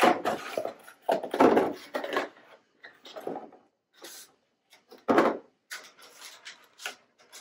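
Cardboard packaging rubbing and scraping as the flamingo statue's legs and stakes are pulled out of the box. It comes in irregular bursts, loudest about a second and a half in and again about five seconds in.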